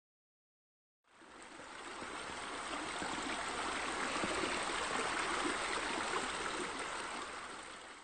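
Steady running water, like a stream or garden water feature, fading in from silence about a second in.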